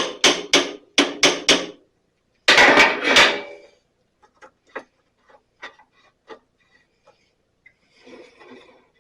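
Quick sharp metallic taps, about seven in under two seconds, then a louder clatter lasting about a second, then a few faint clicks: hand tools working on a bandsaw's lower wheel pulley, nudging it a little further along its shaft.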